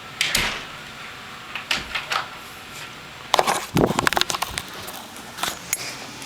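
A few short knocks and clicks, then a dense burst of clattering knocks about three and a half seconds in.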